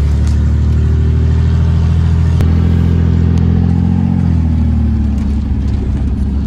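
1998 GMC Sonoma pickup's engine and exhaust heard from inside the cab while driving: a steady, loud drone under throttle that eases off about four seconds in.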